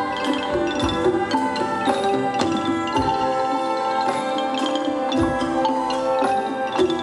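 Live orchestra with strings playing Thai classical dance music, steady melody lines over sharp struck notes about twice a second.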